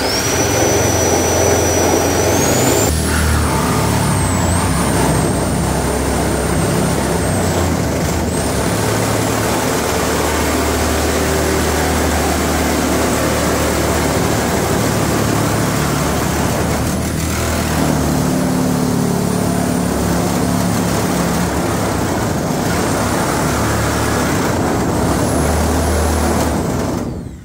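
Corded reciprocating saw cutting down through the sheet-steel side of a Toyota T100 pickup bed, running continuously with a high motor whine over the noise of the blade in the metal. The motor whine steps up in pitch about three seconds in, and the saw stops near the end.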